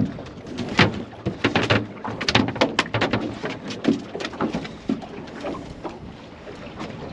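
Irregular knocks and splashes of water slapping against the hull of a drifting fishing boat, over a steady rushing noise.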